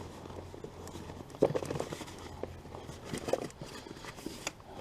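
A run of light knocks and clicks from parts being handled, in two clusters about a second and a half in and around three seconds in, with a last knock near the end.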